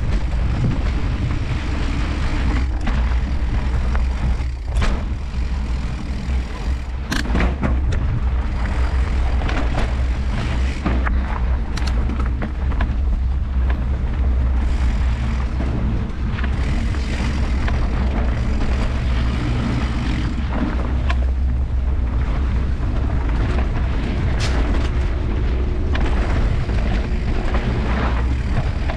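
Mountain bike riding over a dirt trail: steady wind rumble on the microphone with tyre noise, broken by frequent sharp knocks and rattles as the bike hits bumps.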